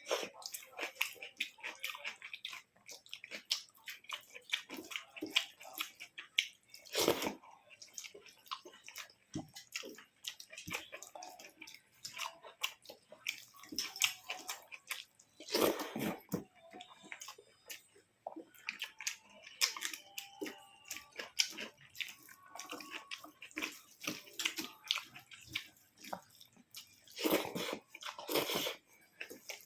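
A person eating rice with vegetable curries and omelette, close to the microphone: continuous wet chewing, lip smacks and small sticky clicks, with a few louder smacks.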